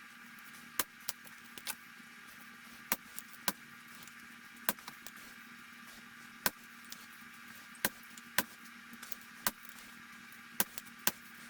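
Irregular sharp clicks and taps from small dash parts and tools being handled, roughly one or two a second, over a steady faint hum.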